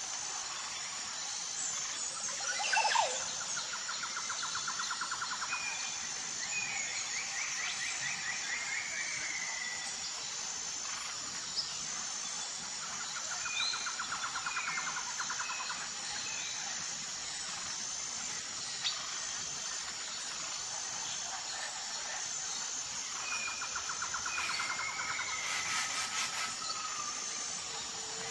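Birds singing: a trilled song phrase repeated three times, about ten seconds apart, with short chirps between, over a steady high hiss.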